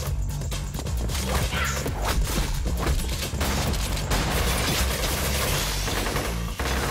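Rapid automatic rifle gunfire with bullets chipping stone pillars, over an electronic music track with a heavy bass.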